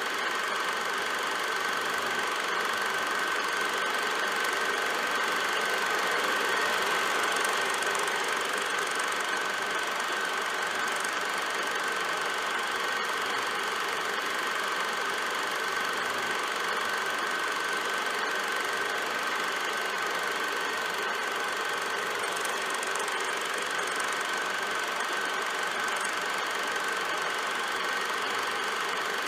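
Movie projector running steadily, a constant mechanical whir with a thin steady tone through it.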